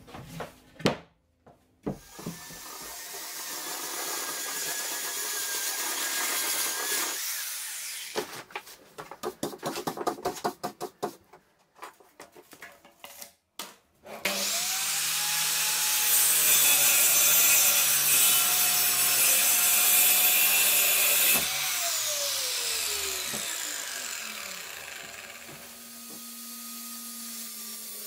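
Sliding mitre saw cutting an oak board: the saw starts suddenly, runs loud through the cut for about seven seconds, then cuts off and winds down with a falling whine. Before it come knocks from handling the board and a fast run of clicks; near the end a table saw motor runs with a steady hum.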